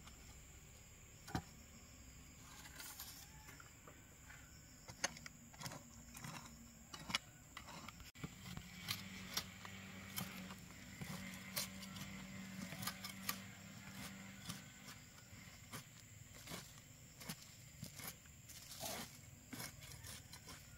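A long-handled hoe chopping into dry, stony earth and dragging the loosened soil, with irregular sharp strikes about once a second.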